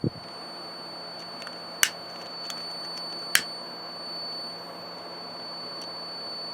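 Dometic RV heater's blower motor switching on with a thump and running with a steady hum, with two sharp clicks about two and three and a half seconds in and a few fainter ticks.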